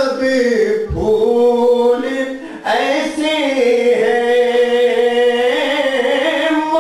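A male voice singing a naat unaccompanied, in long drawn-out phrases. After a short break about two and a half seconds in, one note is held and gently wavered for about four seconds.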